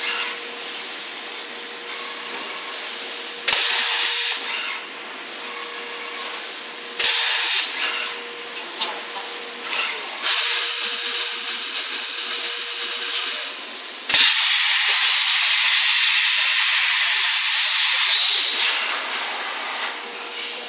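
CNC plasma torch firing with a loud hiss: two short bursts, a longer run, and finally the loudest stretch of about four and a half seconds carrying a steady high whine, over a constant background hiss and hum from the machine.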